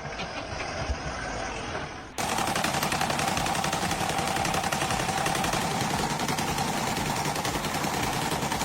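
A low engine-like rumble gives way abruptly, about two seconds in, to a loud, fast, steady mechanical rattle with a constant whine.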